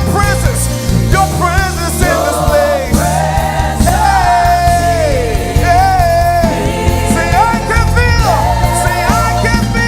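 Live gospel worship music: a band with bass and drums playing under a singer's long, sliding vocal runs.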